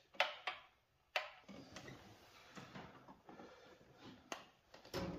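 A few sharp, separate clicks and knocks, the loudest two in the first second or so and more near the end, from hands working around a snowmobile engine compartment.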